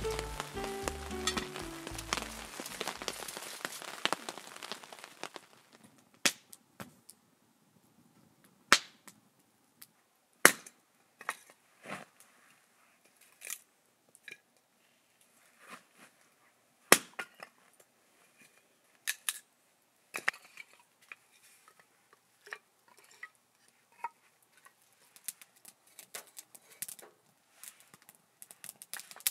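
Background music fades out in the first few seconds, then a wood fire of split logs crackles with sharp, irregular pops and snaps, a few of them much louder than the rest.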